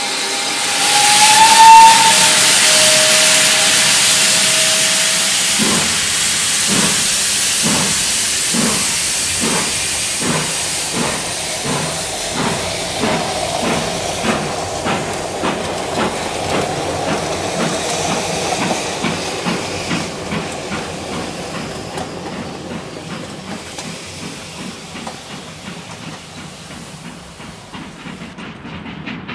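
Steam locomotive starting away: a short whistle and a loud rush of steam hiss at first. Then the exhaust chuffs begin about six seconds in, quickening steadily and growing fainter as the train draws away.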